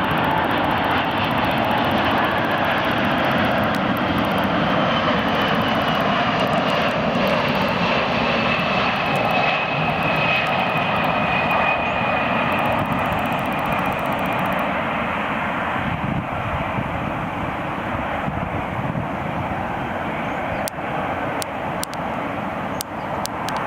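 Boeing 747-400F freighter's four jet engines running as the plane arrives: a steady, loud jet roar with a high whine that slowly falls in pitch, easing off slightly in the later part. A few sharp clicks sound near the end.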